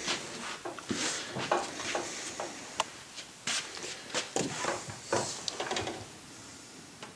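Irregular handling noises: scattered sharp clicks and light knocks mixed with rustling, thinning out near the end.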